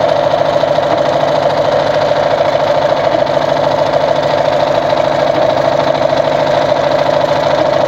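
Brother Pacesetter ZU2-B605 electric sewing machine running steadily at speed, stitching one of its built-in stitch designs through denim.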